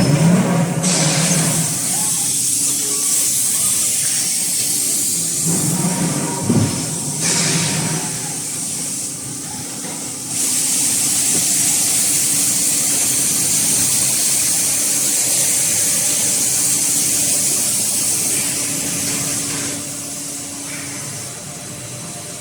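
Automatic forging die lubrication system spraying graphite lubricant, a loud hiss in two long spells with a short burst between, over a steady low machine hum.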